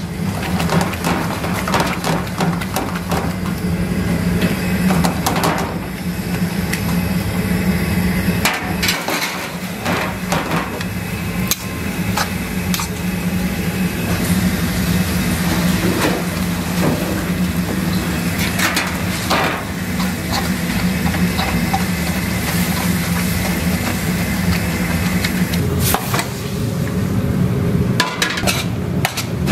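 Metal utensils repeatedly scraping and clanking against a large wok as glass noodles and vegetables are stir-fried for japchae, with frequent sharp knocks over a steady low hum and a constant hiss.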